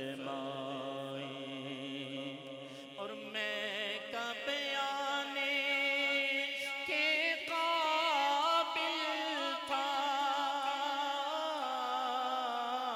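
A man singing an Urdu naat solo into a microphone, drawing out long wavering notes.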